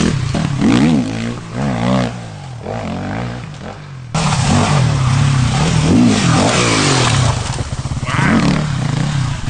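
Dirt bike engine revving up and down hard as the bike is ridden past. It is quieter in the first four seconds, then abruptly louder and closer after a cut.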